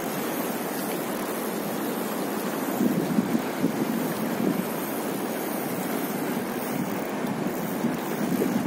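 Fast, turbulent river water rushing and churning, with wind buffeting the phone's microphone; a few slightly louder surges about three seconds in.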